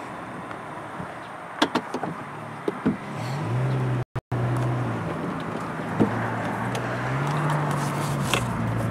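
Car driving along a road with steady road and wind noise. A few sharp clicks come between about one and three seconds in. About three seconds in, the engine hum grows louder and rises and falls in pitch.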